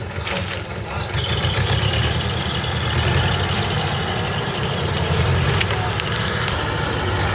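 Heavy diesel engine of earthmoving machinery running, getting louder about a second in, with a faint high whine for a couple of seconds and a few sharp clicks.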